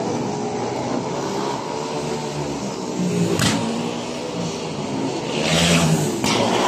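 Speedway bikes' single-cylinder methanol engines racing round the track, their pitch rising and falling as the riders throttle on and off through the bends; the sound swells about three seconds in and is loudest about two-thirds of the way through, as bikes pass nearest.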